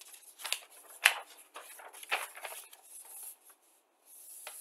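Paper rustling as a printed instruction booklet is picked up and handled: a run of short rustles and crinkles, the sharpest about a second in.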